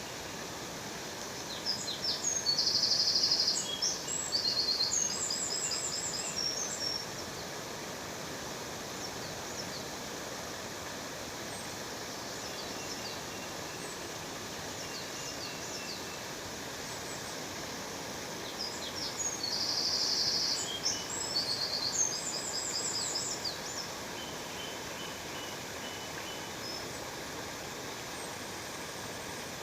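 Steady rush of falling water from a waterfall, with a songbird singing two bouts of rapid high chirps and trills, one near the start and one about two-thirds through.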